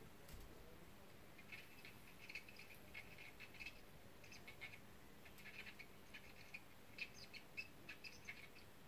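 Faint, irregular crackling and tiny chirping pops of tacky soldering flux heated under a soldering iron tip as a wire is soldered to a lamp-holder contact. The crackles start about a second and a half in and keep coming in short clusters over low room quiet.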